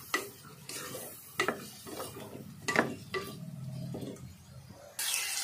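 A spatula stirring and scraping chicken pieces and ginger-garlic paste in hot oil in an aluminium pressure cooker, with a few sharp knocks against the pot, over a faint sizzle of frying. Near the end a louder steady hiss comes in.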